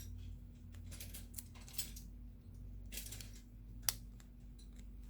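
Faint small clicks and taps of hands and tools working on a smartphone's motherboard and LCD flex cable, with one sharp click just under four seconds in, over a low steady hum.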